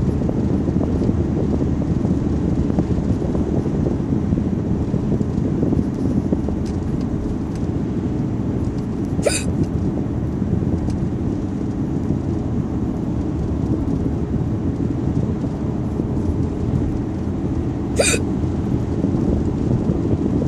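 A person hiccupping twice, about nine seconds apart, each hic short and sharp, over a steady low rumble.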